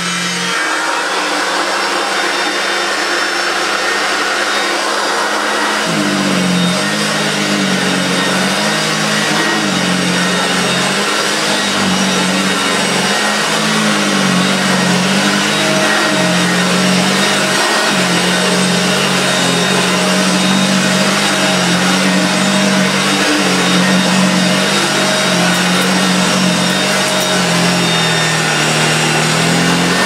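Early plastic-hooded Hoover Junior 1436 upright vacuum cleaner running steadily. From about six seconds in, its low hum rises and falls in a regular rhythm as it is pushed back and forth over a rug. The owner takes its running noise for very dry motor bearings.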